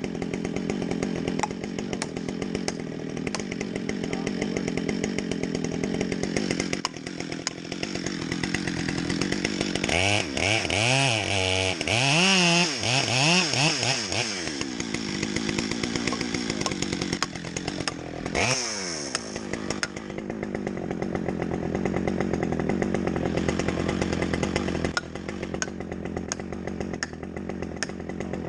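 Chainsaw running in a cut, revving up and down several times about a third of the way in and once more about two-thirds through. It is making the back cut in a back-leaning tree before the face is cut, with felling wedges set in the kerf.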